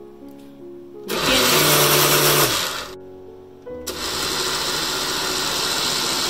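Countertop blender grinding nuts and milk: a run of about a second and a half starts about a second in, stops, then the blender starts again near four seconds and keeps running steadily. Soft piano music plays under it at the start.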